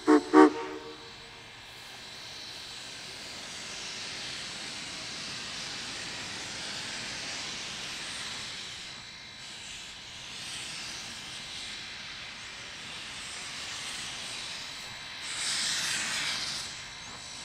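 4-4-0 steam locomotive hissing steadily as it vents steam low around its cylinders while creeping along, with the hiss swelling near the end. Two short, loud pitched toots right at the start.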